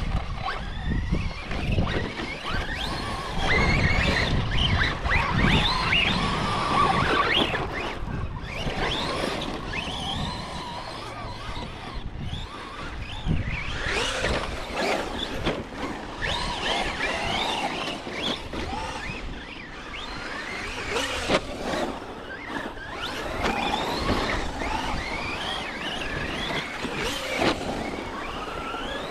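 Electric motors of radio-controlled off-road trucks whining as they are repeatedly revved up and down, the pitch rising and falling through throttle bursts.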